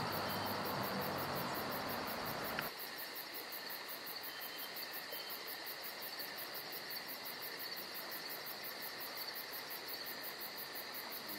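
Night-time insects, like crickets, chirring steadily in a high, evenly pulsing chorus. A louder rustling noise sits over it for the first few seconds and cuts off abruptly.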